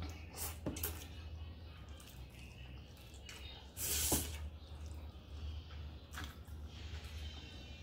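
A person slurping noodles off chopsticks and chewing, with wet mouth noises. The longest and loudest slurp, about half a second, comes about four seconds in, with shorter slurps near the start and about six seconds in.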